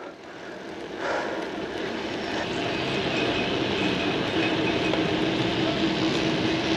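Steady rushing vehicle noise that builds up about a second in and then holds, with a faint steady hum running through it.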